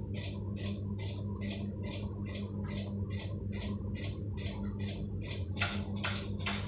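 Electric fan running with a low motor hum and a rhythmic, high-pitched scratchy squeak about two and a half times a second, growing louder about five and a half seconds in.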